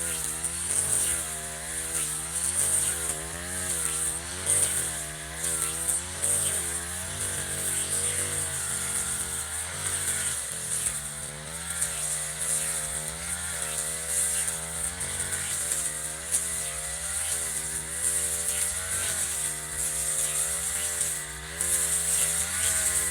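Echo RM435 brush cutter's two-stroke engine running, its speed rising and falling about once a second as the throttle is worked.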